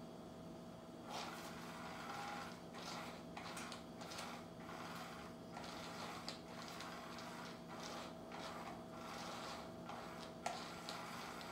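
Battery-powered cat toy running under its fabric cover: its small motor whirs in short, irregular spurts with brief pauses, starting about a second in.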